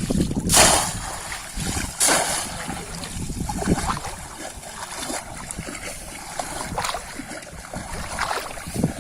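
Water splashing in a shallow pond, with two louder splashes about half a second and two seconds in and smaller ones after, over a low rumble.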